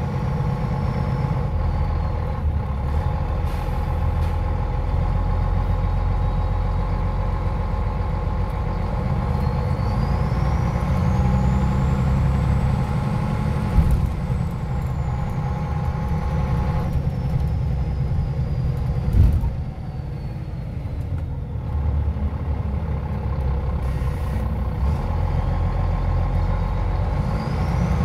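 Scania OmniLink I city bus's engine running under way, heard from inside the passenger cabin as a steady low drone with a faint high whine that rises and falls in pitch. About two-thirds of the way through there is a knock and the engine note drops off, picking up again a couple of seconds later.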